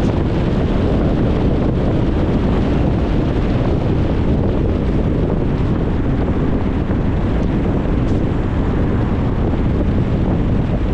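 Steady road noise of a car driving: an even, low rumble of tyres and wind with no breaks.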